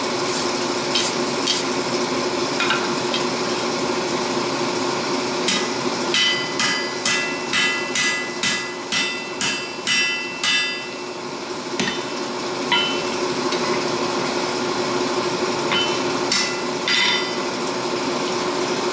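Hand hammer forging a hot steel blade on an anvil: a few scattered blows, then a run of about a dozen blows at roughly two a second, each with a bright metallic ring, over a steady hum.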